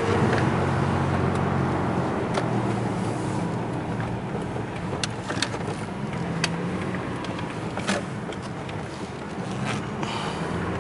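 2008 Toyota Tacoma pickup driving, heard from inside the cab: a steady engine hum under road noise, easing off a little in the middle and picking up again near the end, with a few faint clicks.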